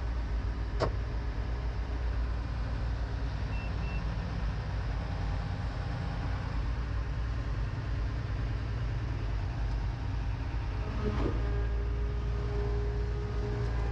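New Holland L521 combine harvester's Fiat diesel engine running steadily, heard from inside the cab. A sharp click sounds about a second in, and a steady tone joins in near the end.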